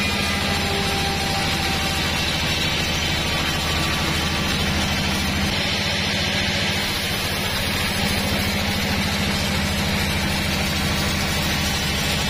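Horizontal band sawmill running steadily as its blade cuts lengthwise through a large forked log: a steady low drone with an even hiss of cutting above it.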